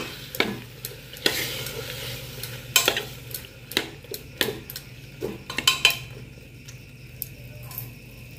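A metal spoon stirring and scraping a frying masala mixture of jackfruit and soya chunks in a pressure cooker, with irregular clinks against the pot over a steady sizzle. The clinks stop about six seconds in, leaving the sizzle.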